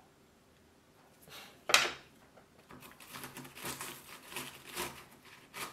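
A single sharp knock about a second and a half in, then a run of short gritty scraping and rustling strokes as a plastic plant label is pushed down into a small pot of orchid mix of bark, pumice and perlite.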